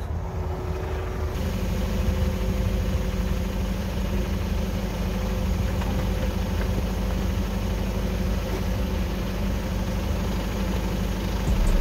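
Forklift engine idling steadily.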